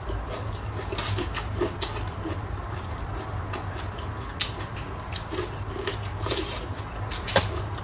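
Close-up eating sounds: chewing and mouth noises with frequent small clicks of chopsticks and utensils against dishes, over a steady low hum.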